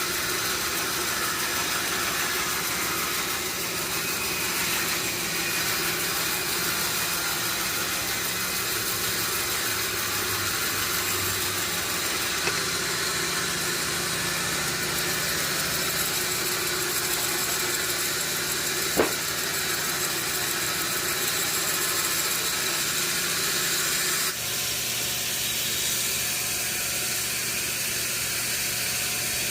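Sawmill machinery running steadily: a motor's hum under a constant hiss, with one sharp knock partway through and a sudden shift in the hum's pitch near the end.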